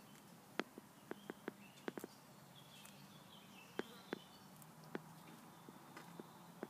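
Irregular sharp clicks and crackles from a tortoise moving and feeding among leafy garden plants. Faint bird chirps sound in the middle.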